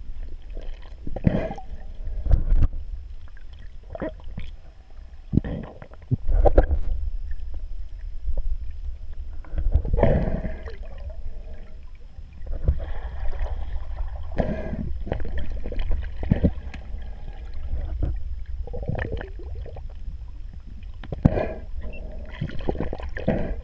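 Muffled underwater noise picked up by a GoPro camera in its waterproof housing: a constant low rumble of moving water, with irregular knocks and short gurgling swishes.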